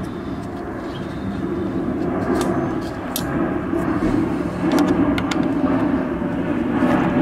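A steady low rumble, with a few light metallic clicks of a Torx screwdriver bit being set into a small screw.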